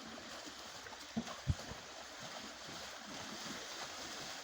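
Steady outdoor rushing noise, with two short low thumps about a second and a half in.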